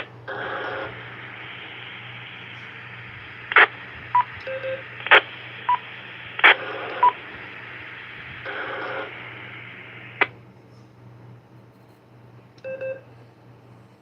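FM two-way radio channel with no voice: a carrier's hiss, broken by sharp key-up and unkey clicks, short beeps and brief tone bursts typical of a repeater's courtesy tones and touch-tone signalling. The hiss cuts off with a click about ten seconds in, and a low hum runs underneath.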